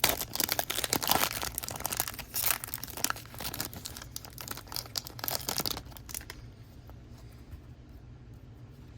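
Trading-card pack wrapper crinkling and rustling as the cards are handled. The dense crackle stops about six seconds in, leaving a faint steady hum.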